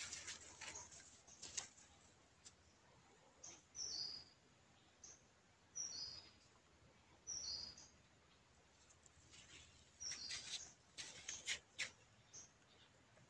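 A small bird repeats a short, high two-note chirp, the second note lower, every couple of seconds. Faint bursts of crisp rustling and crunching come from a rabbit nibbling leafy plants, thickest at the start and in a busy stretch late on.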